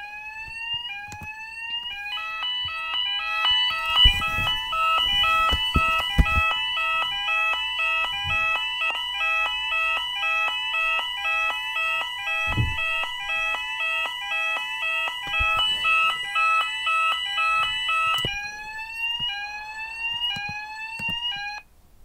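Fire alarm sounders going off: a rising sweep tone repeating about once a second, joined about two seconds in by an alternating two-tone and more sweeps all layered together. Near the end the sweep plays alone again and then cuts off just before the end.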